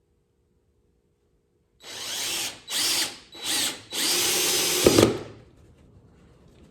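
Dewalt drill driving a screw into the birdhouse's wood in four short runs, the last one longest, ending in a knock as the screw pulls the joint snug.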